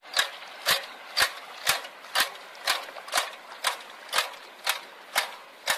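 Manual rice (paddy) transplanter clicking with each planting stroke as its forks set seedlings into the flooded mud, about two even clicks a second.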